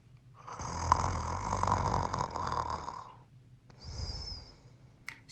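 A person snoring: one long snore with a low flutter, then a shorter breath with a thin high whistle in it.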